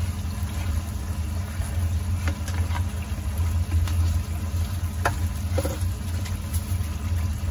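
Chicken adobo simmering in thick sauce in a nonstick wok, faint pops and a couple of spatula knocks against the pan as it is stirred about five seconds in, over a steady low machine hum from the kitchen.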